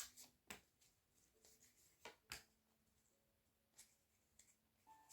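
Tarot cards being handled while drawing from a deck: a few faint, short clicks and flicks of card stock, in otherwise near silence.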